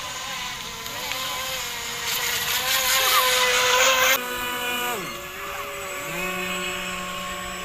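Radio-controlled model boat motors whining steadily on the water, getting louder with a hiss of spray as one boat runs close by. The sound cuts off sharply about four seconds in, a pitch falls as a boat slows, and a lower steady hum from another boat comes in near the end.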